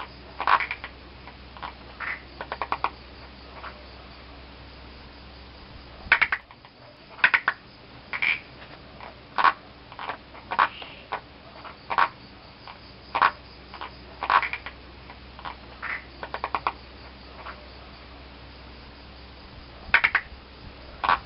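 Several frogs calling: short croaks and quick runs of clicking pulses, coming at irregular intervals over a low steady hum.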